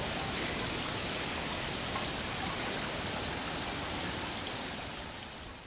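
Steady rushing hiss of a thunderstorm's wind and rain outdoors, with an uneven low rumble underneath, fading away near the end.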